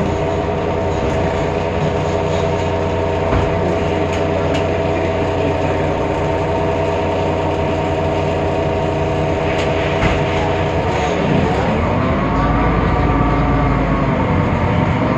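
Temsa Avenue LF city bus running with its DAF PR 228 diesel and ZF Ecolife automatic gearbox. The drive gives a steady whine of several tones over the engine rumble. About eleven seconds in, the whine dips and then climbs again as the bus slows and pulls away, with the low engine rumble heavier near the end. This whine is the sound the uploader calls strange and unlike a normal bus of this type.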